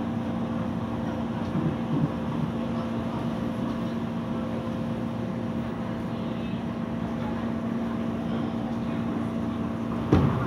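Steady running noise of a passenger train heard from inside the carriage, with a constant hum from the train's motors. Just before the end there is a sudden loud rush as a train passing the other way sweeps by the window.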